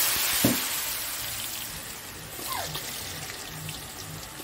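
Hot oil in an iron kadai sizzling as thin potato strips are dropped in by hand. The sizzle is loudest at first and settles to a steadier fizz over the first two seconds, with a soft knock about half a second in.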